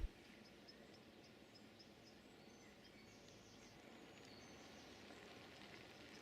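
Near silence: faint outdoor background noise with a few faint, short, high chirps.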